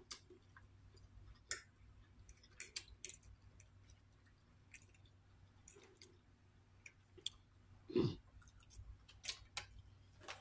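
Faint eating sounds: scattered small clicks and taps of a knife and fork on a plate as steak is cut, with chewing and mouth sounds. A short, louder low sound comes about eight seconds in.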